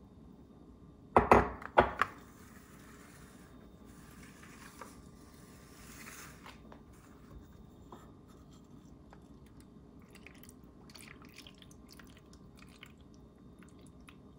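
Two sharp knocks about half a second apart, about a second in, as a glass measuring cup and plastic ice cube trays are set down and shifted on a granite countertop. Faint rubbing and small clicks of handling follow.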